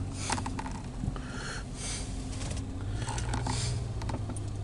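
CSX freight train cars rolling past, with scattered metallic clicks and squeaks over a steady low rumble.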